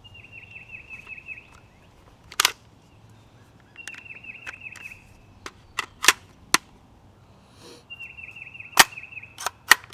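Sharp metallic clicks and clacks, about eight in all, as a Kel-Tec PLR-16 5.56 pistol's action is worked by hand to clear a malfunction. A bird sings a short trilled phrase three times between the clicks.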